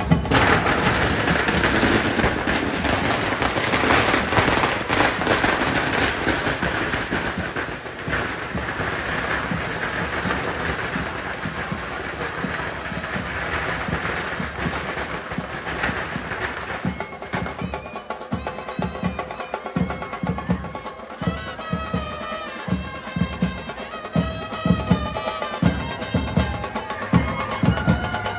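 Brass band with drums playing loudly. The sound is dense and noisy for the first half or so, then from about two-thirds of the way in a clear trumpet melody rides over steady drum beats.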